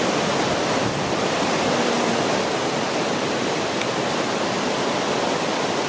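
Njupeskär waterfall, a steady, dense rush of falling water.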